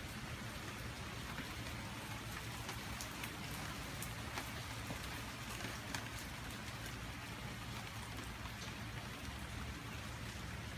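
Steady rain falling, with many single drops ticking sharply close by.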